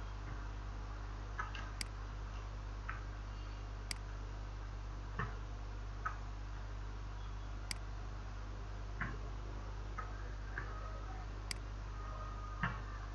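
Computer mouse clicking: about a dozen single, sharp clicks at irregular intervals, a second or so apart, over a steady low electrical hum.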